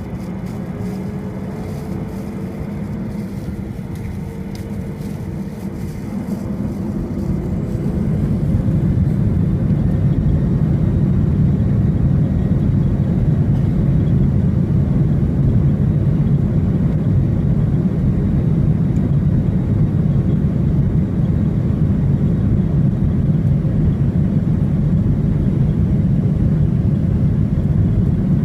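Boeing 737-800's CFM56-7B jet engines heard from inside the cabin. They spool up with a slightly rising whine over the first few seconds, then climb to a steady, much louder roar and rumble at takeoff thrust, as on the takeoff roll.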